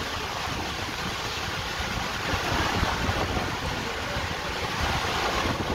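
Heavy rain pouring down in a thunderstorm with strong wind, a steady hiss of rain with gusts rumbling on the microphone.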